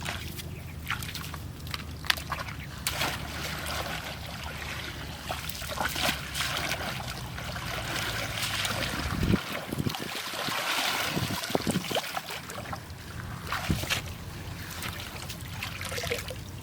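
Water sloshing and splashing, with scattered short knocks and clicks; a low steady hum underneath stops about nine seconds in.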